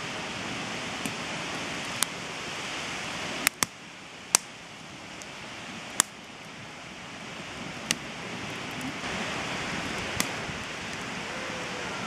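Campfire of split firewood crackling: sharp pops at irregular intervals, about a second or more apart, over a steady hiss.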